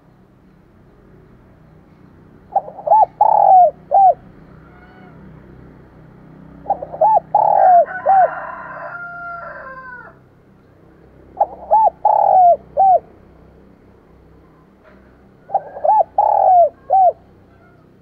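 Spotted dove cooing its calling song: four phrases, each a quick run of four or five notes, about four seconds apart. A short burst of other noise overlaps the end of the second phrase.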